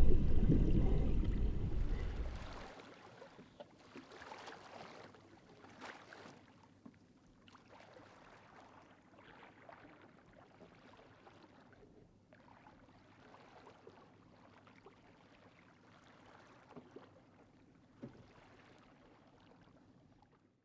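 A loud low rumble fades away within the first three seconds, leaving faint water sounds: soft splashes and gurgling with a few small sloshes.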